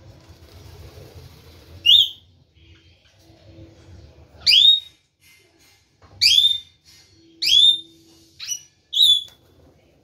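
Parakeet giving six short, loud, shrill calls at irregular intervals of one to two and a half seconds, each sweeping sharply upward in pitch.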